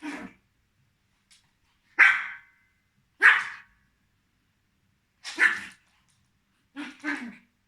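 Young Pomeranian spitz barking in play: about six short, high barks, irregularly spaced a second or more apart, the last ones coming in quick pairs.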